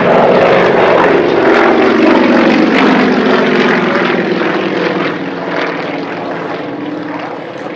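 A pair of Yakovlev aerobatic planes, a Yak-55 and a Yak-18T, flying past in formation, their nine-cylinder M-14P radial engines and propellers running together. The pitch drops over the first few seconds and the sound fades as they pass.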